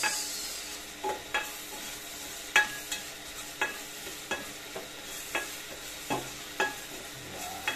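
Chopped garlic, ginger, tomato and onion sautéing in oil in a metal pot, a steady faint sizzle, while a rubber spatula stirs them, knocking and scraping against the pot at irregular moments.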